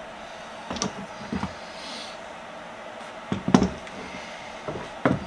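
Bar clamps being handled and tightened around a hammer's handle scales during an epoxy glue-up: a handful of short knocks and clicks of clamp parts, the loudest about three and a half seconds in, over a faint steady hum.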